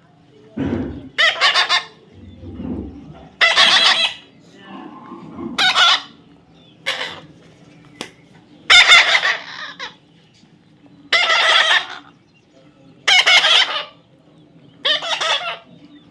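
A pet parrot calling repeatedly: about eight loud calls, each half a second to a second long, spaced a second or two apart.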